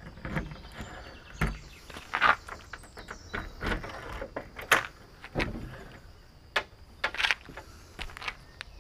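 Keys jangling and clicking in the lock of a motorhome's exterior storage locker, then the locker hatch being unlatched and swung open, as a series of separate clicks and rattles.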